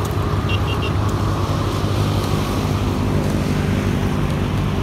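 A steady low engine drone, with three short high chirps about half a second in.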